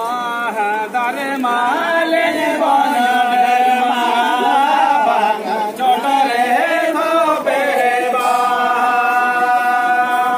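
Voices singing together in a chant-like Santali folk song, the notes sliding in pitch at first and then held long and steady near the end.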